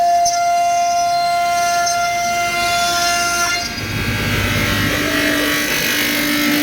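CNC router spindle whining steadily while cutting a jali pattern in 18 mm MDF. A little over three seconds in the whine breaks off, a rougher cutting noise rises, and the whine settles again at a lower pitch.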